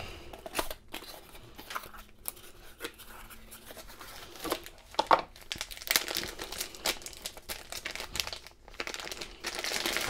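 A thin clear plastic bag crinkling and rustling in the hands as a padlock is unwrapped from it, with irregular crackles and small knocks of the packaging.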